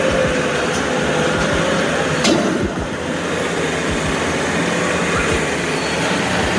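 Heavy truck engine running under load, a loud steady noise with low engine pulses and a faint wavering tone, and a single sharp click about two seconds in.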